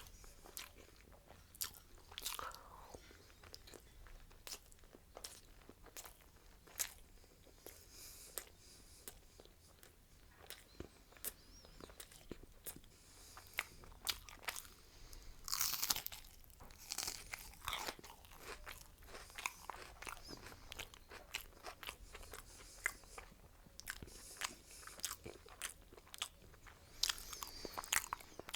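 A person chewing food close to the microphone: wet mouth clicks and repeated crisp crunches at an irregular pace, with louder bites about halfway through and near the end.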